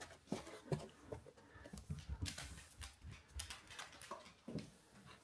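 A Belgian Shepherd's (Groenendael's) claws and paws tapping on a wooden floor as it walks, in faint, irregular light clicks, mixed with a person's footsteps.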